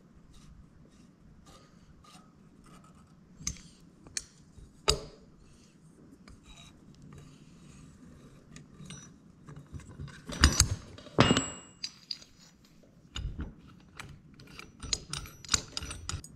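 Valve spring compressor at work on a Predator 212 Hemi cylinder head: scattered metallic clicks and clinks of the tool, valves and valve springs being handled. The loudest clanks come about ten to eleven seconds in, one of them ringing briefly.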